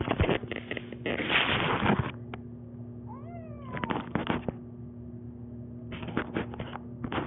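A cat meows once about three seconds in, a call that bends up and then down in pitch. Noisy bursts with no pitch come before and after the call.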